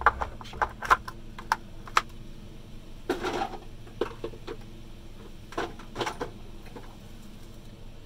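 Hard plastic parts of a Henry vacuum cleaner's housing knocking and clicking as they are pulled apart and handled: several sharp clicks in the first two seconds, a longer clatter about three seconds in, then a few scattered knocks.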